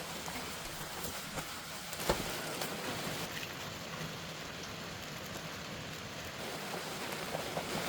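Steady rain falling, with one sharp knock about two seconds in.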